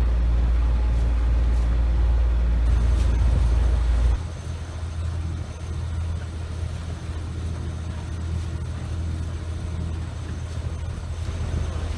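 Sailboat's inboard engine running with a steady low rumble, which drops suddenly to a lighter, quieter rumble about four seconds in.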